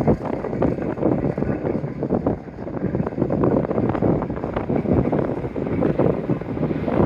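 A train rushing past at speed, its noise mixed with heavy wind buffeting the microphone, steady and loud throughout.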